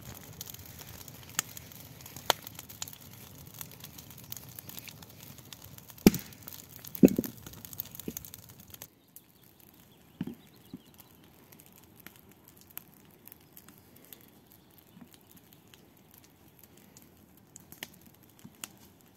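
Wood campfire crackling and snapping under a hanging pot, with two louder pops about six and seven seconds in. About halfway it drops suddenly to a fainter crackle with only occasional snaps.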